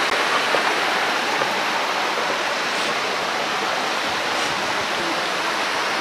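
A stream rushing steadily over rocks as it runs to the lip of a waterfall.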